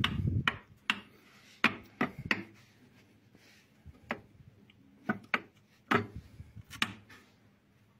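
Irregular sharp clicks and knocks of hard objects being handled, about a dozen strikes at uneven intervals, thinning out near the end.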